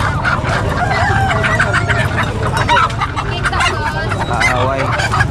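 Many caged poultry, chickens and turkeys among them, calling over one another in a dense, unbroken chorus of short overlapping calls, with a steady low hum underneath.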